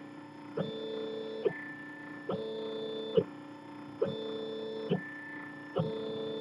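3D printer's stepper motors whining in steady tones while the print head makes fast back-and-forth moves. The pitch switches between two sets of tones about every 0.85 s, with a short click at each change of direction.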